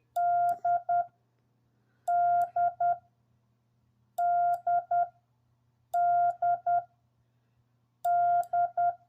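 Morse code sidetone from a Yaesu FTDX10 transceiver keyed with a Bencher iambic paddle, sending the letter D (dah-dit-dit) five times, about two seconds apart. Each letter is one long beep followed by two short ones, all at the same steady mid pitch.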